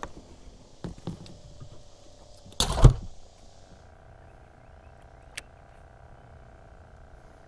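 A few light knocks, then one brief loud thump with a rustle about two and a half seconds in, followed by a faint steady whine with a single sharp click.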